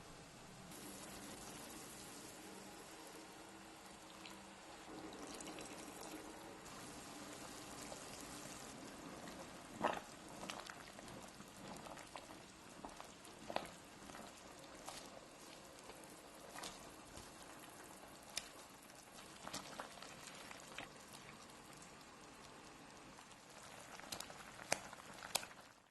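Sauce bubbling in a pan as the sour-spicy coconut basa fish cooks, a faint steady simmer, with scattered sharp clicks and taps of a utensil against the pan, most clearly about ten seconds in and near the end.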